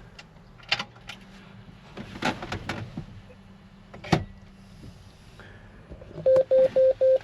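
Clicks and knocks of movement in a combine cab, with one sharp loud knock about four seconds in. Near the end come four short, loud electronic beeps on one tone, evenly spaced, from the combine cab's electronics as they power up.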